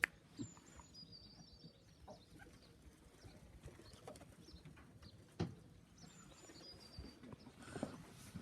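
Faint birds: short, high, thin chirps about a second in and again near the end, with scattered soft knocks in between.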